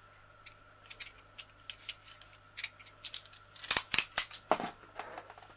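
Scattered light clicks, then a cluster of louder sharp clicks and crackles about four seconds in, from hands handling a roll of film-covered diamond painting canvases whose plastic bands have just been cut off.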